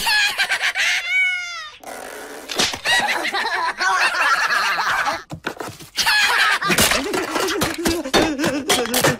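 Cartoon voices and sound effects: a short falling whistle-like sound effect about a second in, then the cockroaches' high-pitched cackling laughter, and in the second half a cartoon cat's yowling, grunting vocalisations.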